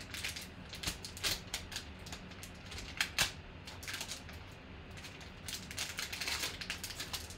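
Shiny black trading-card pack wrapper being torn and pulled open by hand: irregular crinkling crackles and clicks, thickest near the end.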